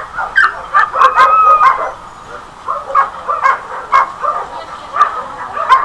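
Several dogs barking in short, overlapping yaps, densest in the first two seconds, then dropping to scattered single barks.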